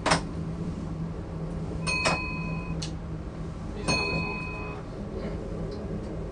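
Diesel train heard from the driver's cab rolling slowly, its engine a steady low hum. A sharp click comes at the start and another near three seconds, and a bell dings twice, about two seconds apart.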